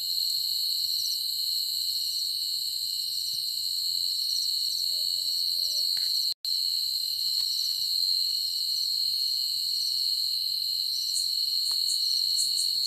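Night chorus of crickets and other insects: several steady shrill tones at once, with rapid repeating chirps on top. The sound cuts out for a moment about six seconds in.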